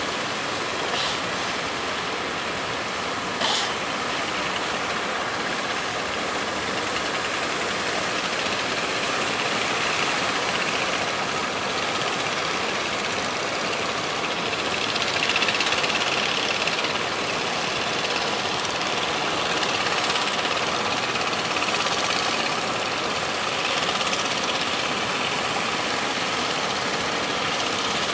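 Fishing boat engines running, under a steady rushing noise of strong wind and waves that swells and eases. Two brief sharp sounds in the first four seconds.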